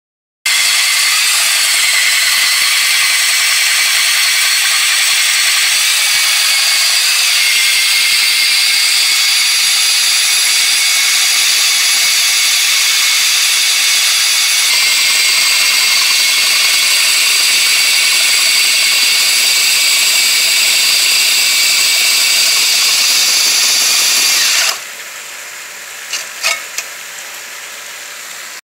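Electric core drill boring a 4-inch hole through a concrete foundation frost wall, running with a loud, steady high whine that shifts pitch slightly twice. It cuts off about 25 seconds in, leaving a quieter steady noise and a couple of clicks.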